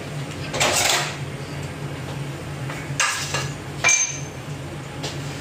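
Kitchen clatter of dishes and utensils on a counter: a short scrape about a second in, then two clinks near the three- and four-second marks, the second ringing briefly. A steady low hum runs underneath.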